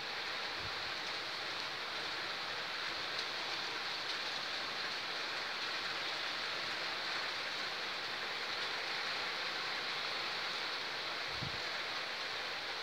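Heavy rain falling steadily: a continuous even hiss of downpour.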